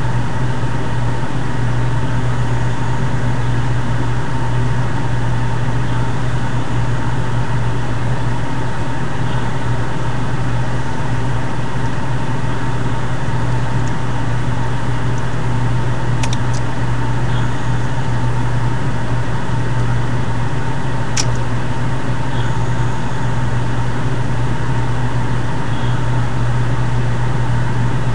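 A loud, steady low drone with hiss over it, unchanging throughout, with a couple of faint clicks, one of them sharper, about 21 seconds in.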